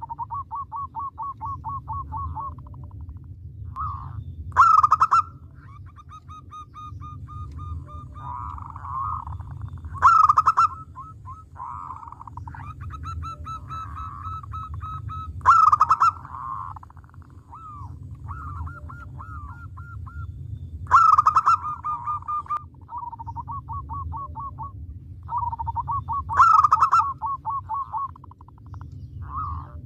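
Zebra dove (perkutut) cooing its staccato song: a loud burst followed by a rapid train of short notes, repeated about every five and a half seconds. Fainter cooing overlaps in between, over a steady low hum.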